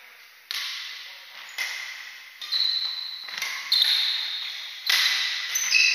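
Badminton rally: rackets strike a shuttlecock six times, roughly a second apart, each hit echoing in a large hall. Brief high squeaks of court shoes on the wooden floor come between some of the hits.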